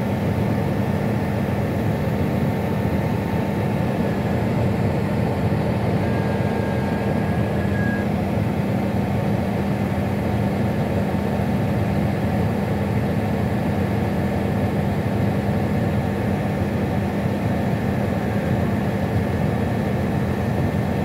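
Farm tractor's diesel engine running steadily as the tractor drives across the field, heard from the driver's seat as an even, unbroken low drone.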